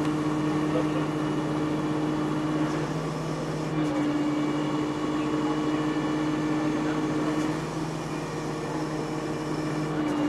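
Heavy truck engine running at a steady speed: a low, even hum with fainter higher whining tones. Its pitch steps up slightly about four seconds in.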